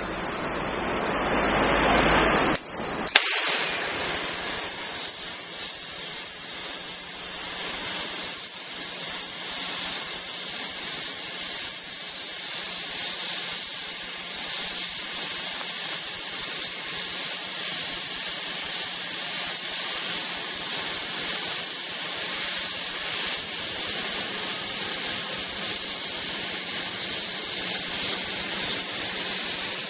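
CNC drilling and flame-cutting machine at work: a loud rushing noise that swells and cuts off suddenly, a single sharp pop about three seconds in, then a steady hiss with a faint low hum.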